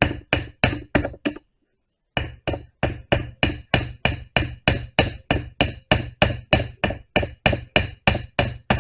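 Ball-peen hammer tapping steadily on a chainsaw chain's rivet, about four light strikes a second, peening the rivet head over to join the .404 chain. The tapping stops briefly about a second and a half in, then carries on at the same pace.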